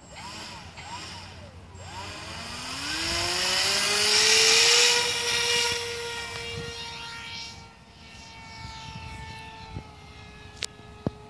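Scratch-built RC plane's motor throttling up for a hand launch: after a few short blips, a whine rises in pitch over the next few seconds and is loudest about four to five seconds in, then holds a steady pitch and fades as the plane climbs away.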